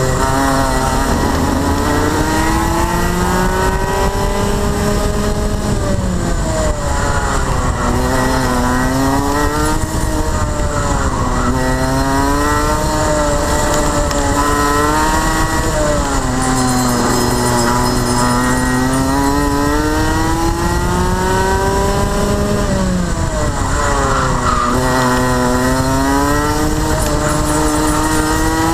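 Rotax Max 125cc two-stroke kart engine at racing speed, its pitch climbing as it accelerates and dropping as it slows, several times over.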